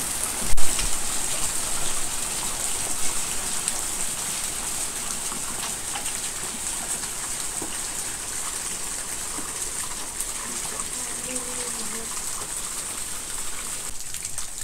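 Heavy rain mixed with hail falling steadily, with water gushing down a rain chain into a plastic bucket. One sharp knock about half a second in is the loudest moment.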